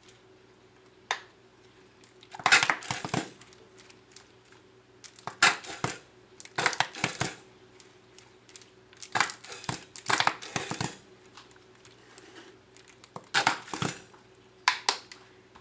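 Plastic squeeze bottle of mayonnaise being squeezed over a bowl of salad in about six separate bursts of crinkly, squirting noise.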